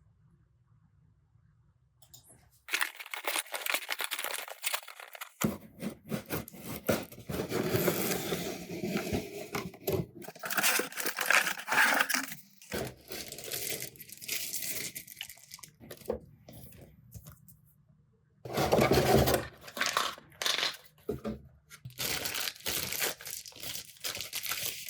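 Packaging from a 3D printer's accessory box being opened and unpacked: irregular crinkling, rustling and tearing that starts a few seconds in, stops briefly now and then, and has a louder stretch about two-thirds of the way through.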